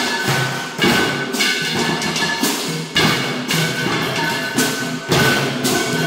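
Homemade tin band (banda de hojalata) of tin-can percussion playing a cumbia beat: regular loud strikes slightly more than once a second, with a high ringing tone held between them.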